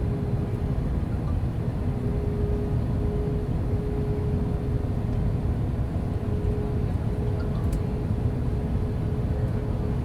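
Steady low cabin rumble of an Airbus A320 from its two IAE V2527 engines, with a faint steady hum running through it.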